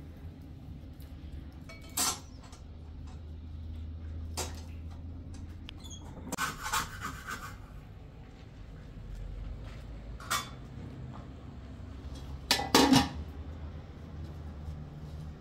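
Dishes and cooking utensils being handled: a handful of separate clinks and knocks, the loudest pair about thirteen seconds in, over a low steady hum.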